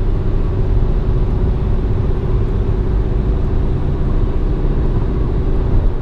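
Steady road and engine drone heard from inside a 2016 Dodge Dart's cabin at highway speed, with a constant low hum running underneath.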